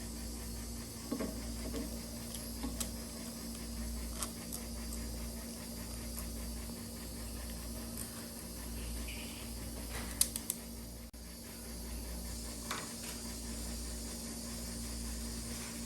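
Scattered light clicks and taps of small parts being handled on the microwave fan motor as its bushings are greased, over a steady low hum and hiss.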